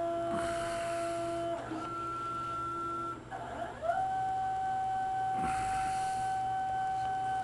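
Stepper motors on a Harbor Freight 9x20 lathe converted to CNC, whining at a steady pitch as they drive the axes. The pitch changes a couple of times, gliding up to a new, higher steady whine about four seconds in.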